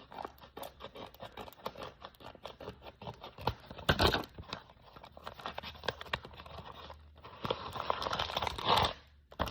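Blind-bag packaging being torn open and crinkled by hand: irregular crackles throughout, with a louder rip about four seconds in and a longer spell of tearing near the end.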